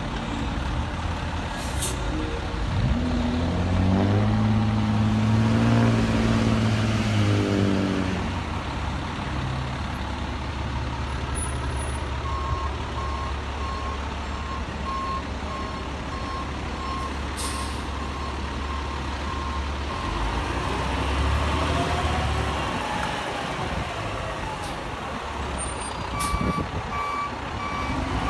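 Fire engine's diesel engine idling with a deep rumble, revving up and back down a few seconds in. A reversing beeper sounds in a steady pulse from about twelve seconds in and again near the end, and there are a few short air-brake hisses as the pumper backs up.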